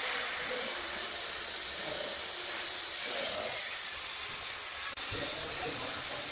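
Steady high-pitched hiss throughout. It breaks off sharply for a moment about five seconds in, after which some low, irregular knocking and handling sounds join it.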